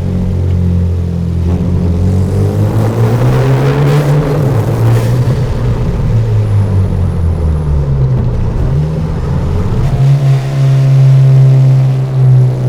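Turbocharged Hyundai Genesis Coupe with a free-flowing aftermarket exhaust, driven hard in a manual gear: the engine note climbs for about two seconds with a short rush of noise at the top, then drops away as the revs fall. About ten seconds in it settles to a steady, loud drone.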